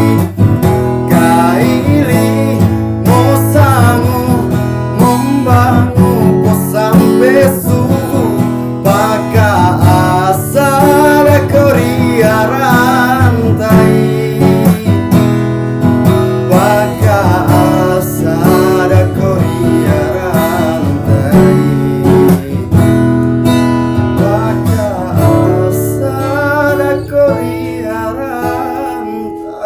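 A male voice singing a Kaili-language song over a strummed acoustic guitar.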